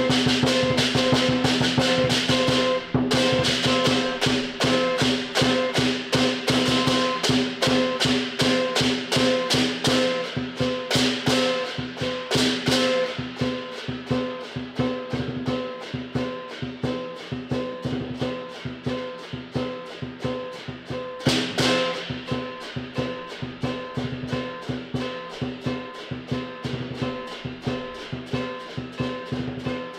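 Southern lion dance percussion: drum, gong and cymbals playing a fast, steady beat, with the gong ringing on under the strikes. It is louder in the first half, and there is one louder crash about two-thirds of the way through.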